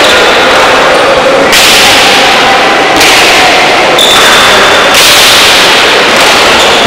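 Pelota ball cracking sharply against the frontón wall and off the players' strokes during a rally, each hit ringing out in heavy echo. New cracks come every one to one and a half seconds.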